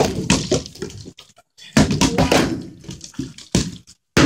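Plastic water bottles being flipped and landing on the floor: a run of dull knocks and thunks.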